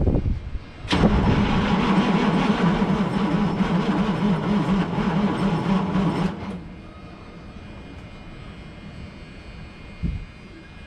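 White GMC cabover truck's diesel engine cranked over by its starter for about five seconds with a pulsing, uneven churn, then cut off without catching: the batteries are too weak for it to start. A short thump comes just before the cranking and another near the end.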